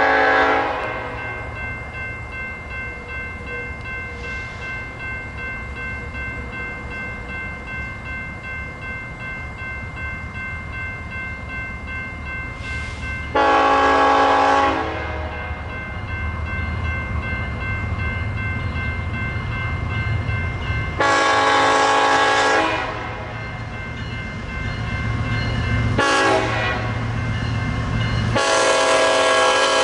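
Empty coal hopper cars rolling past with a steady rumble and rattle. Over it, a locomotive horn ends a blast about a second in, then sounds long, long, short, long, the grade-crossing signal, with the last blast still sounding at the end.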